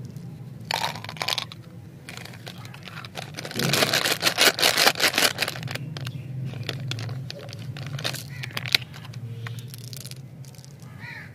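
Plastic candy packet crinkling and being torn open, loudest about four seconds in, over a steady low hum.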